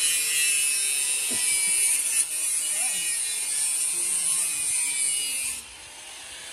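A small electric power tool running with a steady high-pitched hissing whir, which cuts off abruptly near the end.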